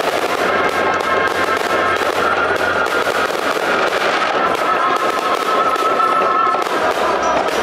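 Fireworks display: shells and comets going off in rapid succession with dense, continuous crackling and popping. A steady high tone runs underneath.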